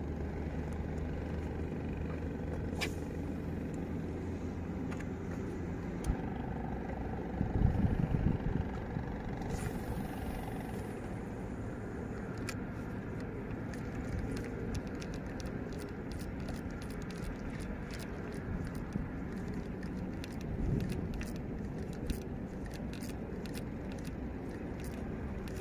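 Steady low outdoor rumble with a heavier thump about eight seconds in. From about halfway there is a run of small, irregular clicks as a spinning rod is cast and its reel wound in.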